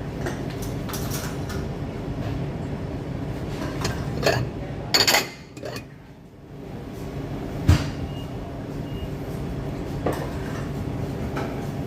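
Dishes and utensils clinking and knocking, with a few sharp clatters (the loudest about five seconds in) over a steady machine hum.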